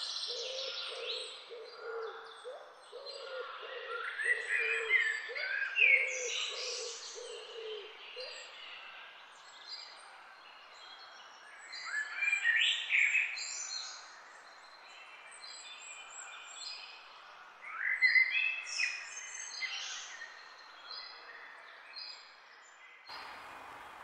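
Several birds singing and chirping, with bursts of song every few seconds and a low hooting note repeated over and over for the first eight seconds or so. About a second before the end the birdsong gives way to a steady noise.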